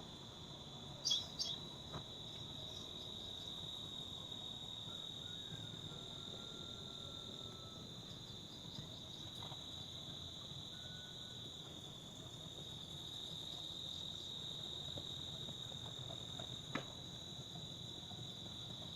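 Steady, high-pitched chorus of insects trilling in the open air, with a few faint short clicks about a second in and one near the end.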